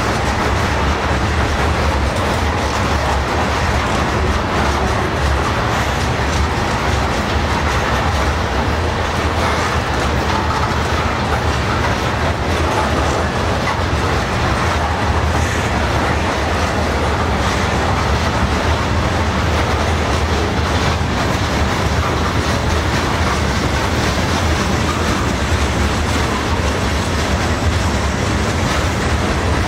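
Freight cars (covered hoppers and boxcars) of a mixed freight train rolling past at steady speed: the steady, unbroken noise of steel wheels running on the rails.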